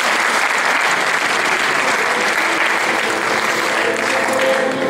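Audience applauding, a steady dense clapping; music begins to come in faintly near the end.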